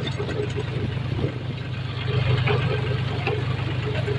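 Farm tractor's engine running steadily as the tractor drives along a dirt track: a low drone with scattered rattles and knocks over it.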